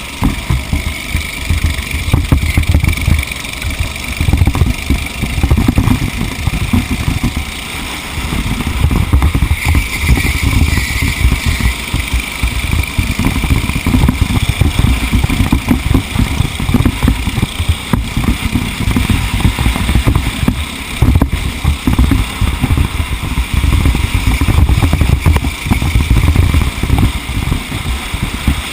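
A TaG racing kart's two-stroke engine running under race conditions, recorded onboard, with a heavy, constantly fluctuating low rumble over it.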